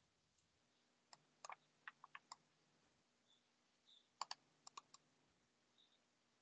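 Near silence broken by two short runs of faint clicks, about a second in and again just past four seconds.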